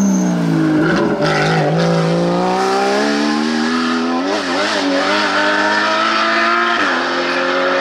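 Porsche Cayman rally car's flat-six engine at full throttle as the car passes and pulls away. The engine note drops at first, then climbs steadily through the gears, with upshifts about halfway through and near the end.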